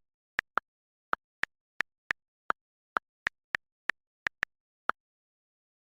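Phone on-screen keyboard key-press clicks: about fifteen quick, even ticks at an irregular typing pace, one per key tapped, stopping about five seconds in.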